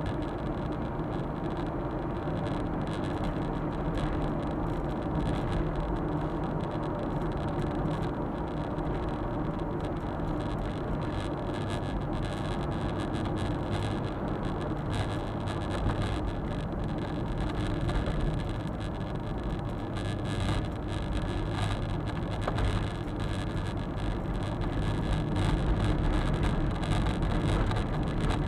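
Suzuki Super Carry kei truck driving at steady speed, its small three-cylinder engine running under road and tyre noise as heard from inside the cab.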